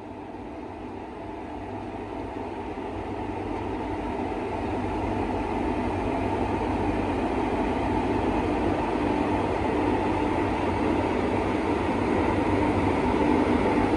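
WAP-4 electric locomotive rolling slowly closer at a station, a steady mechanical hum of its running gear and electrics growing evenly louder as it draws level and passes.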